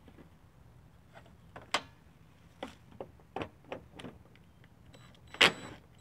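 A few light clicks and knocks as a cordless drill/driver is handled, then about five and a half seconds in a sharp clack with a brief whir of its small electric motor as it is set on a 10 mm headlamp mounting bolt to back it out.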